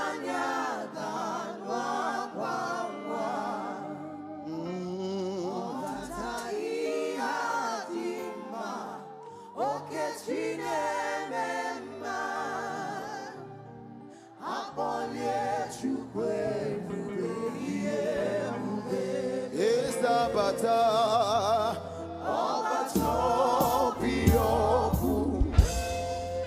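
Voices singing a gospel worship song together, with low held notes of a bass accompaniment changing step by step underneath.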